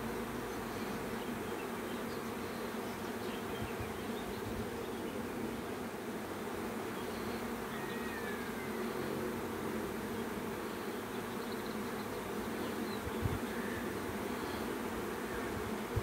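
A swarm of honeybees buzzing, a steady dense hum of many bees flying together.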